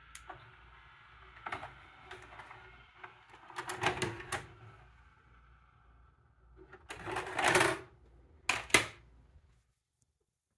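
Mechanical clicks, clatter and knocks from handling a Samsung DVD-V2000 DVD/VCR combo, its front-panel buttons and tape mechanism, over a faint steady whine that fades out about halfway. The loudest are a second-long clatter and a sharp knock near the end.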